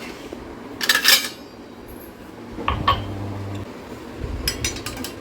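Kitchen containers and dishes clattering as they are handled, in three separate bursts of knocks and rattles.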